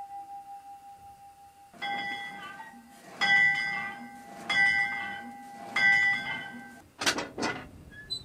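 A 1928 steam locomotive's bell rung from the cab: four strokes about a second and a quarter apart, each ringing on at one steady pitch into the next. Near the end come two sharp clicks.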